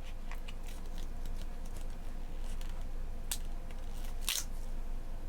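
Sticker sheets and planner paper being handled: scattered small crisp ticks and crinkles, with two louder ones a little past halfway.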